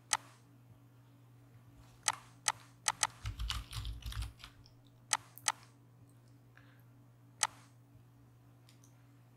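Computer keyboard being typed on: a quick run of keystrokes about three seconds in, between scattered single clicks, the last one near the end.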